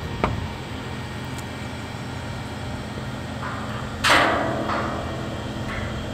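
Steady low hum of machinery, with a short click near the start and one loud metallic bang with a ringing tail about four seconds in, plus a few fainter knocks: metalwork on a steel frame, likely hammering.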